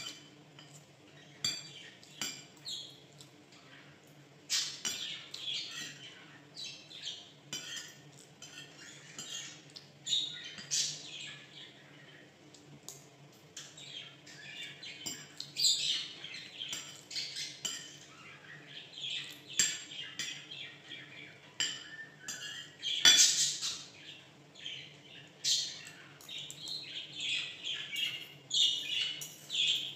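Spoon and fork clinking and scraping on ceramic plates and bowls while eating, with a pet bird chirping over and over in its cage. One sharp clink about two-thirds of the way through is the loudest sound.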